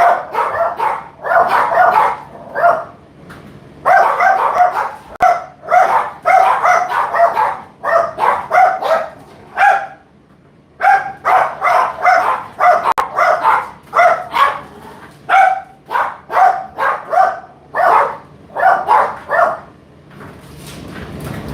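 A dog barking over and over in quick runs of short barks, about two a second, with a pause of about a second midway. The barking stops shortly before the end, and a steady rushing noise rises.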